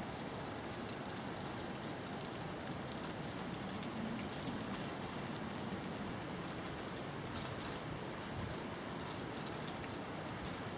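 Steady rain falling, an even hiss flecked with many small, sharp drop ticks.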